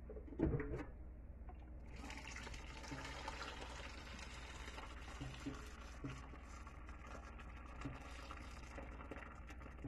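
Water running from a kitchen tap into a stainless steel cooking pot of pork, filling it, starting about two seconds in. A short thud comes first, about half a second in.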